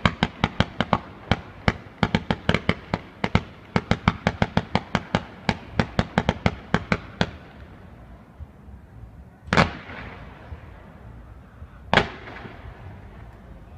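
Fireworks display going off: a rapid string of sharp bangs, about five a second, for about seven seconds, then two single louder bangs a little over two seconds apart, each trailing off.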